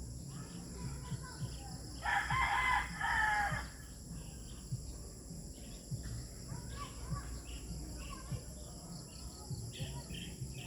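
A rooster crows once, about two seconds in, over a steady high buzz of insects.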